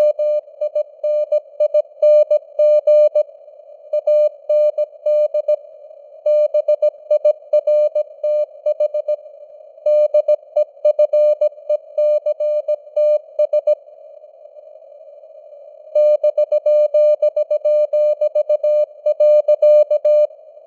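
Morse code (CW) sent at 17 words per minute as a single-pitched beep keyed in dots and dashes, over simulated radio band hiss with slowly varying signal strength. The keying pauses for about two seconds two-thirds of the way through while the hiss carries on.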